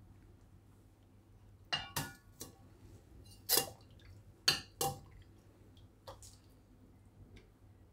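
Steel ladle clinking against a glass bowl and a steel pot while serving dal, about half a dozen sharp clinks spread over a few seconds.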